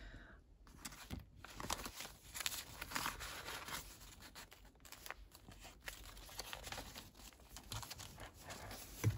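Paper pages of a handmade junk journal rustling and crinkling as they are handled and turned, with a few soft taps, in a small room.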